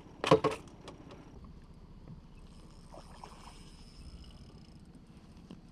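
A quick cluster of loud knocks and clatter about a quarter second in, as of something striking a small fishing boat, then a quiet stretch with a faint steady high whine in the middle.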